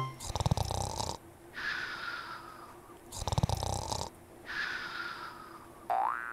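Cartoon snoring: two rattling snores on the in-breath, each followed by a whistling out-breath that falls in pitch. A short rising tone sounds near the end.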